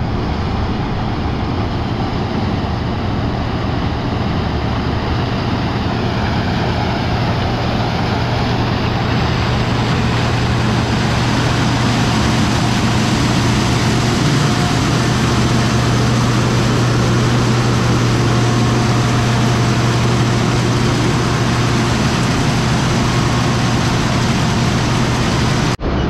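Large farm machinery engine, from the harvesting combine or the grain buggy tractor, running steadily at constant speed: a deep, even hum under a broad mechanical rush.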